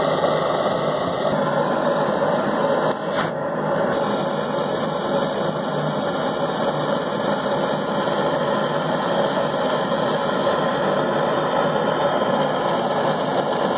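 Steady machine-like hum over a hiss, with a short dip about three seconds in.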